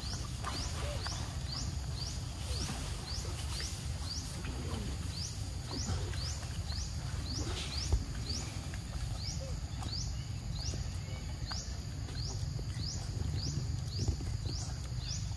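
A macaque biting and chewing a green mango, with two sharp bites, one about halfway through and one near the end. Behind it, a short high rising chirp repeats evenly a little over twice a second, over a low steady rumble.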